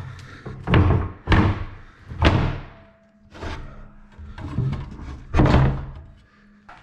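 Metal scaffolding frames and parts being handled and fitted together: a series of loud knocks and clanks, about six in all, each with a short ring.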